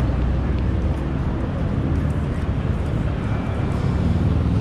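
Busy city street traffic: vehicle engines running at an intersection, with a steady wash of street noise and a low engine hum growing stronger near the end.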